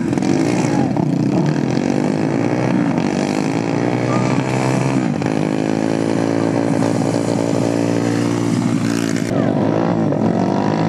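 Several racing kart engines running at once, revving up and down so their pitches rise and fall and overlap, as the karts roll slowly past.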